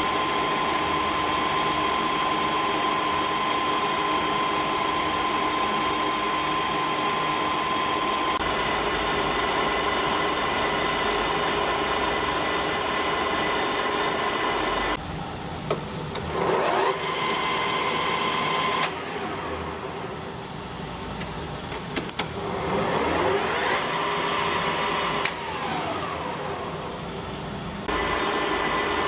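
Colchester Triumph 1600 centre lathe running under power with a steady whine. About halfway through it turns quieter and its pitch glides up and down a few times, then it settles back to steady running near the end.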